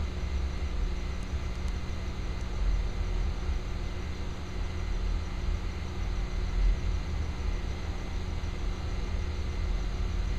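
A steady low rumble with a faint, even hum over it, like a running engine or machinery in street ambience at night.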